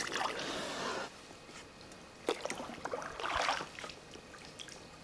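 Canoe paddling on calm river water: a swish of water that stops about a second in, then dripping and trickling, with a sharp click about two seconds in and a short splash of another paddle stroke a little later.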